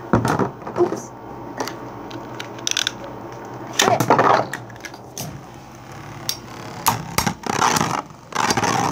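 Beyblade spinning tops battling in a plastic bowl stadium: repeated sharp clacks and clatters as they strike each other and the bowl wall. The clattering is densest about four seconds in and again near the end.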